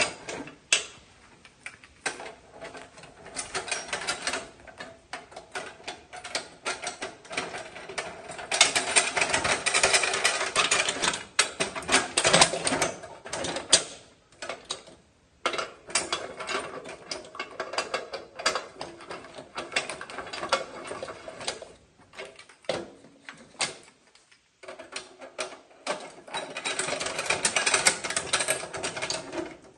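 Steel wheel-clamp parking boot being cranked closed around a tractor tire: metal clicking and clanking in several spells of rapid clicks, the densest about nine to thirteen seconds in and again near the end.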